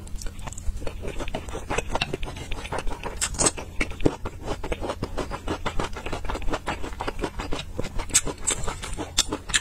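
Close-miked chewing of a soft steamed bun, a dense run of small wet clicks and smacks from the mouth, over a low steady hum.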